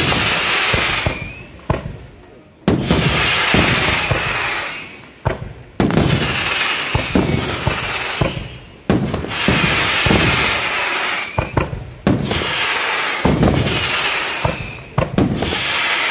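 Aerial firework shells bursting, a sharp bang about every three seconds, each followed by a rush of noise that fades over about two seconds.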